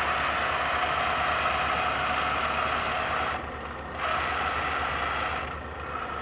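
LeBlond hollow-spindle engine lathe's carriage moving on rapid traverse: a steady mechanical whine over a low hum. It drops away a little past three seconds, starts again about a second later, and falls back again near the end.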